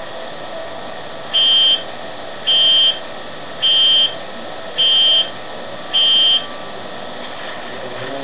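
An electronic buzzer beeps five times, one short high-pitched beep about every second, over a steady background hiss.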